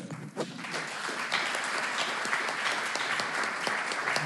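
Audience applauding: many hands clapping together, building up within the first half second and then holding steady.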